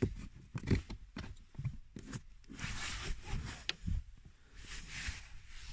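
Handling noise around a car's plastic cabin-filter housing: a few light clicks and knocks and short rustles.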